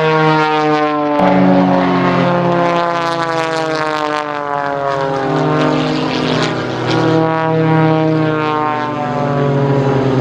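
Propeller-driven aerobatic airplane's engine and propeller, their pitch sliding down and up again and again as the plane tumbles through an inverted flat spin, with a sudden shift in pitch about a second in.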